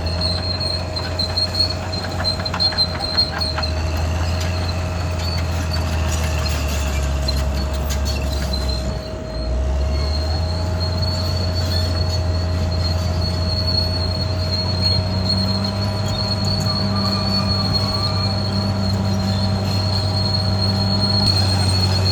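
Caterpillar D6R XL crawler bulldozer working: the diesel engine runs steadily under a continuous high-pitched squeal and whine from the steel tracks and undercarriage. A few sharp cracks or clanks come in the first few seconds, and the engine note dips briefly about nine seconds in, then picks up again.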